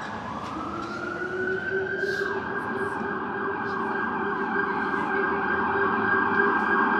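Emergency vehicle siren sounding on the street, rising in pitch over the first couple of seconds and then holding steady, growing louder as it approaches.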